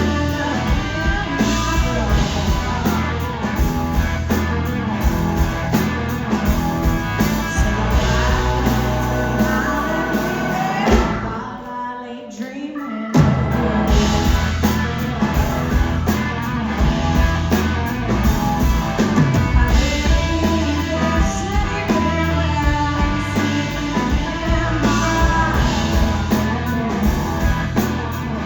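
Live rock band playing loudly, with electric guitar, drums and a singing voice. About eleven seconds in the band drops out for a short break, then comes crashing back in.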